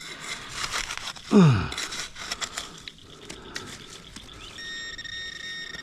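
Scraping and crunching of digging in gravelly creek sand, with a person's short falling grunt about a second and a half in. From about four and a half seconds in, a steady electronic tone from a handheld metal-detector pinpointer sounds continuously, signalling metal right at its tip: a coin.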